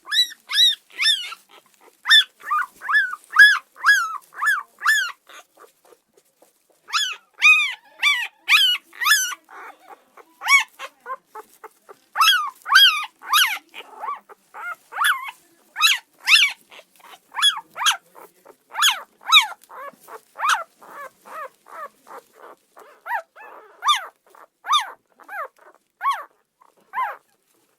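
Dog giving short, high-pitched yelps and whines in quick succession, about two a second, with a brief pause about six seconds in.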